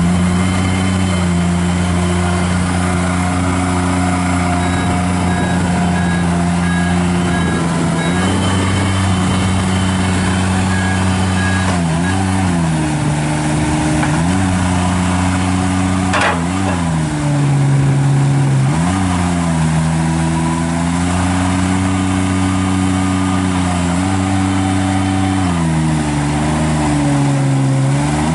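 Avant 420 articulated mini loader's Kubota diesel engine running at high revs, its pitch dipping and recovering several times under load as the machine is worked. There is a sharp click about sixteen seconds in.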